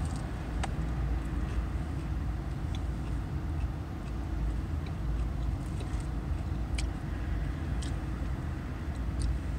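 Steady low rumble inside a parked, running car's cabin, with a few faint crisp crunches of someone chewing a fried chicken tender.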